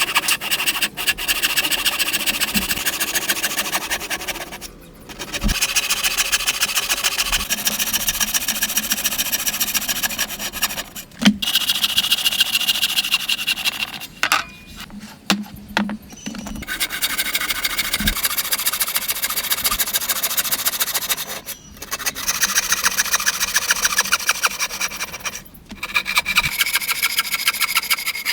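Wood being cut or rasped by a woodworking tool, in runs of about four to five seconds of rapid, even scraping strokes separated by short pauses.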